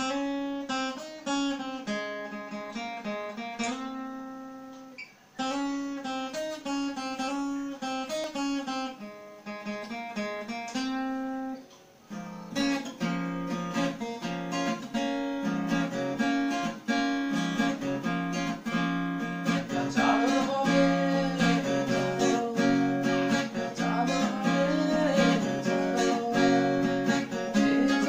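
Acoustic guitar playing a picked melodic intro, which about twelve seconds in gives way to fuller, louder strummed accompaniment. A man's singing voice comes in over the guitar near the end.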